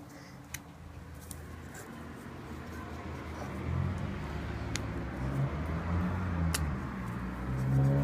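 A low, engine-like rumble, like a motor vehicle running, that builds up about three seconds in and grows louder toward the end, with a few faint clicks.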